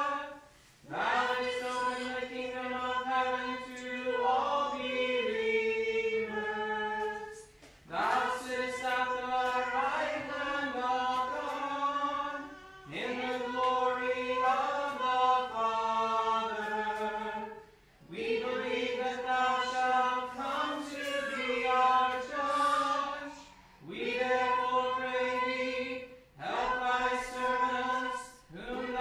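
A few voices chanting a canticle in unison. The phrases are mostly held on a steady reciting note and step down to a cadence, with a short pause for breath between phrases about every four to six seconds.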